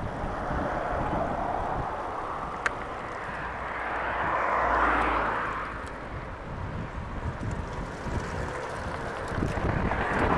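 Wind rumbling over the microphone on a moving bicycle. A motor vehicle passes about four to five seconds in, its noise swelling and then fading away.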